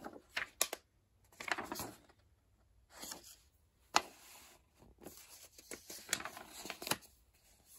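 Pages of a paper instruction booklet being turned and smoothed down by hand: a run of soft rustles and swishes, with one sharp click about four seconds in.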